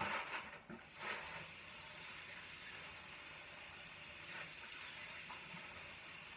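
Kitchen tap running steadily while hands are washed under it, the water starting about a second in after a few light knocks.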